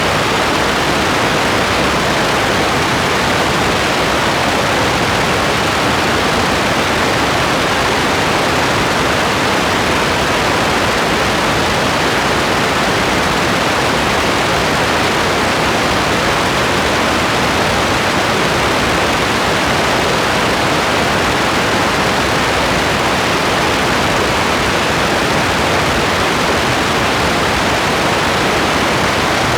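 Steady rain, an even hiss that holds constant, with no single drops or other events standing out.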